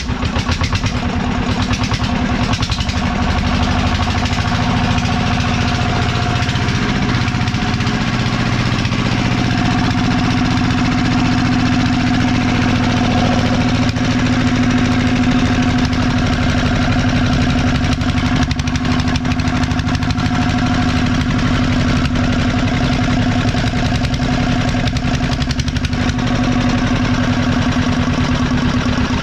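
Small single-cylinder diesel engine running steadily at a fixed speed, with a constant pitch.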